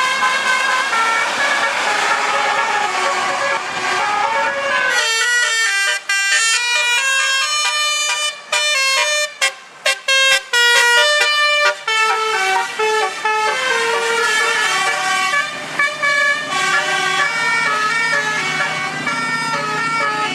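Basuri telolet bus horn, a multi-trumpet horn, playing a melody of stepped horn notes, with a few short breaks between phrases midway. A low rumble of passing traffic lies under it for the first five seconds.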